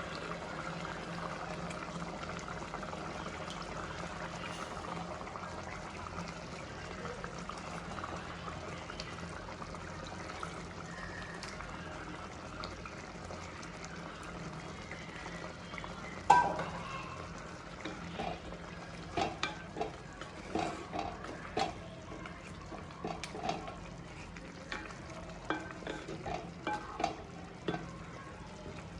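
Tamarind fish curry bubbling in a pot on the stove, a steady simmering hiss. About halfway through there is one sharp knock, then a run of light knocks and clinks from the pot as the fish goes in.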